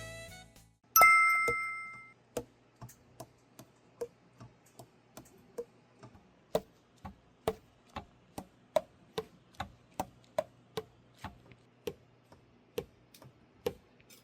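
A bright metallic ding, then a long run of sharp key clicks on an alto saxophone, two or three a second, each with a short pitched pop as a pad closes on its tone hole.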